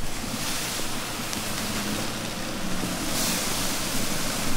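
Eel fillets sizzling on a wire grill while being cooked as kabayaki: a steady, even hiss.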